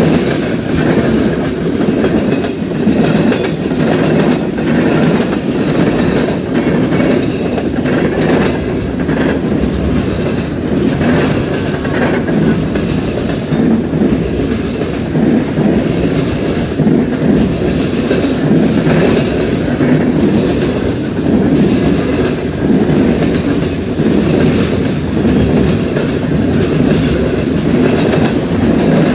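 Freight cars of a long train rolling past close by: tank cars, lumber flatcars and autoracks making a steady rumble of steel wheels on the rails, with repeated clicks as wheels pass over the track.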